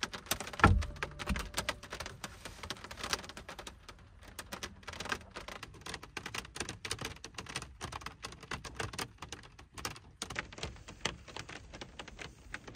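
Rain pattering on the truck's bed cap, heard from inside as a dense, irregular ticking of drops. There is one dull thump just over half a second in.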